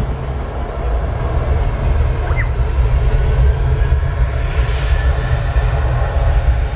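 Boeing 737 jet engines at takeoff power during the takeoff roll: a deep, steady rumble with a faint high whine, getting slightly louder over the last few seconds.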